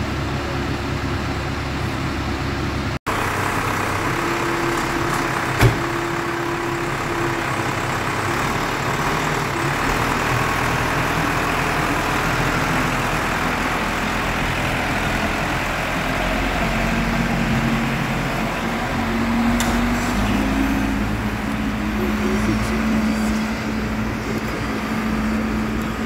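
Case 580L Series 2 loader-backhoe's diesel engine running as the machine drives and manoeuvres, its note shifting up and down with engine speed. It breaks off for an instant about three seconds in, and there is one sharp knock a few seconds later.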